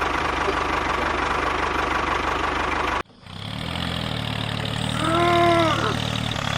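Small engine of a DIY mini tractor running with a fast, even knocking beat. It cuts off abruptly about three seconds in, then a steady engine hum fades back in. About five seconds in, a brief call rises and falls in pitch over the hum.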